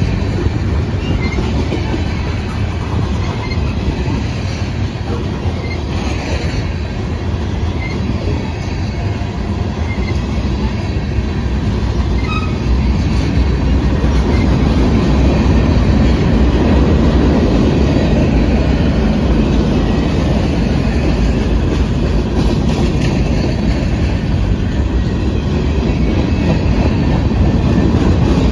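A freight train's cars rolling past close by, their steel wheels rumbling steadily on the rails, a little louder from about halfway on.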